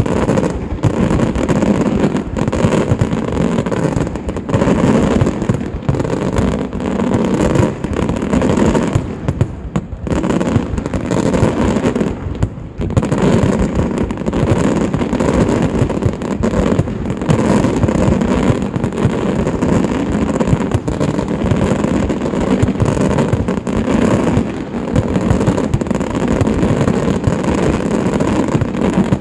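Fireworks display heard at close range: a dense, continuous barrage of aerial shells bursting, the explosions running together almost without pause.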